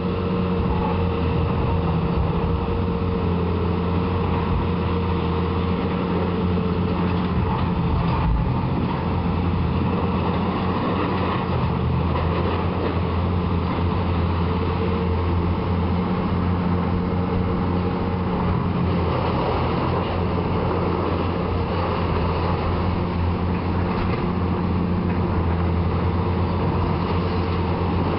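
Diesel engine of a tracked hydraulic excavator running steadily at a constant low pitch while it demolishes a brick building.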